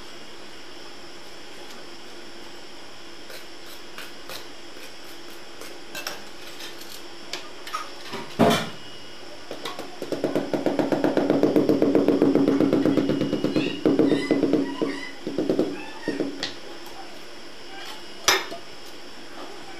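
Rubber mallet tapping a large floor tile down into its mortar bed: scattered light clicks, then a fast run of dull taps lasting about six seconds, with single sharp knocks before and after the run.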